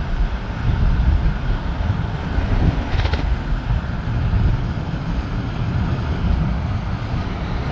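Inside a moving car's cabin: a steady low rumble of road and engine noise from driving, with one short click about three seconds in.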